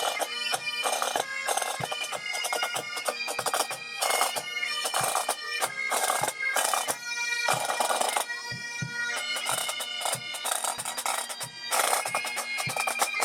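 A pipe band playing: Great Highland bagpipes sound a tune over their steady drone, with drum strokes struck throughout.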